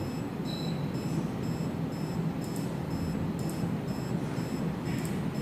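OneTech E8 ELISA microplate reader running a measurement: a steady low mechanical hum with a regular high ticking, about two to three ticks a second, and a few faint clicks.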